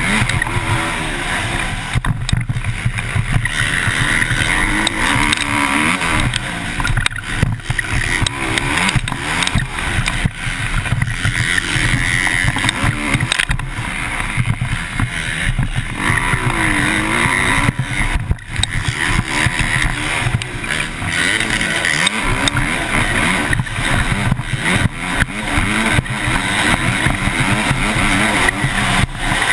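MX2 motocross bike engine racing at full throttle, its pitch rising and falling as it revs through the gears, with a few brief drops where the throttle is chopped. It is heard through a helmet-mounted camera.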